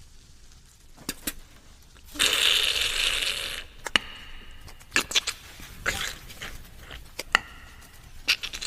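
Beatboxed, mouth-made imitation of eggs being cracked and fried in a pan: a couple of sharp clicks, then a loud hissing sizzle lasting about a second and a half, followed by more clicks and short hisses.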